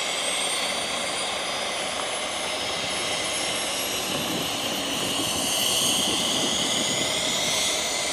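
Steady engine whine over an even rushing noise, with one high tone slowly rising in pitch.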